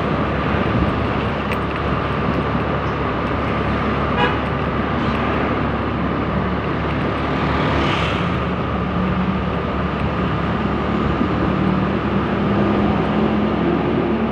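Motor scooter riding along a street: steady engine, wind and road noise, with a short horn toot about four seconds in.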